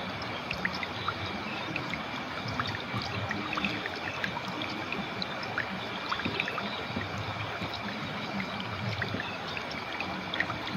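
Water flowing in a clear, shallow river: a steady babble dotted with many small splashes and plinks.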